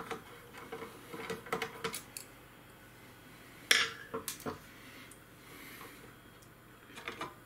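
Scattered small metal clicks and clinks as a screwdriver works the screws of a graphics card's metal backplate and the backplate is eased off, with a sharper clink about three and a half seconds in.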